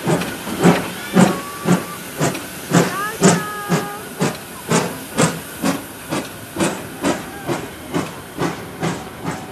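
Steam locomotive exhaust beating out slow, even chuffs, about two a second, with steam hissing, as the train gets under way.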